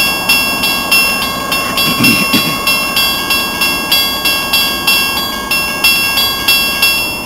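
Railroad grade-crossing warning bell ringing steadily at about three strikes a second, each strike ringing on into the next: the signal warning of an approaching train. A brief low rumble comes about two seconds in.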